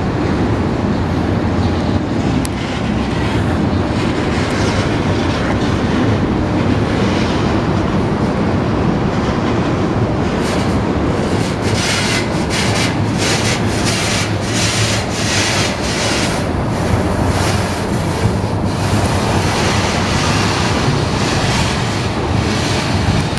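Freight train cars rolling past, with a steady rumble and wheels clattering over rail joints, the clatter coming thick and rhythmic in the middle stretch.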